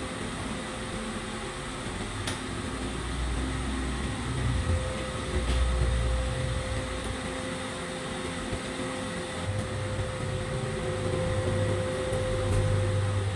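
Lathe running steadily in a workshop, with a steady hum and a low rumble that swells and eases, plus a few faint clicks.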